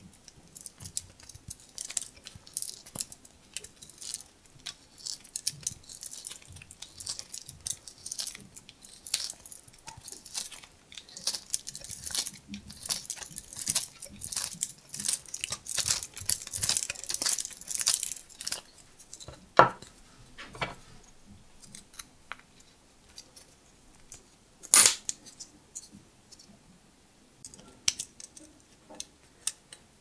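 A Victorinox Swiss Champ pocket-knife tool rapidly scratching and rasping against a thin piece of wood for most of the first twenty seconds. Then sparser handling clicks, with two sharp, louder clicks about twenty and twenty-five seconds in.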